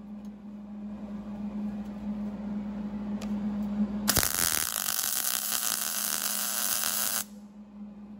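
A power tool working the sheet metal of a grain header: a steady hum, then about four seconds in a loud grinding, drilling noise that runs for about three seconds and cuts off suddenly.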